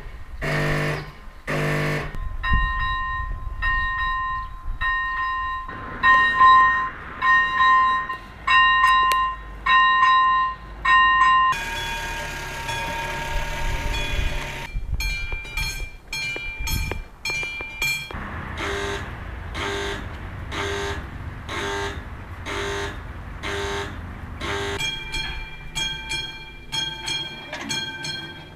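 Railway level crossing warning bells ringing in a steady rhythm, a little faster than one strike a second. The pitch changes a few times as different crossings' bells follow one another. Around the middle the bells give way for a few seconds to a steady rushing noise, likely a train passing.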